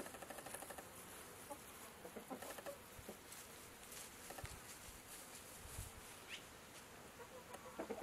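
Chickens clucking faintly in short, rapid runs, near the start and again about two and a half seconds in, the low murmuring clucks of hens foraging.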